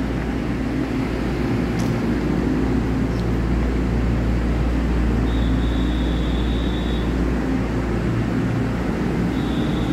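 Steady low hum of a Taiwan Railways EMU3000 electric train standing at an underground platform, its onboard equipment running. A high, steady electronic beep sounds twice, once about five seconds in for nearly two seconds and again near the end.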